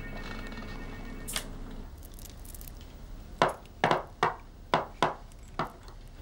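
A steady hum with several held tones stops about two seconds in. Then come six sharp knocks or clicks, roughly half a second apart.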